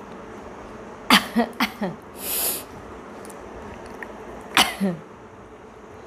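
A woman's small, stifled sneezes: four quick ones about a second in, then a sharp sniff, then two more a little past the middle.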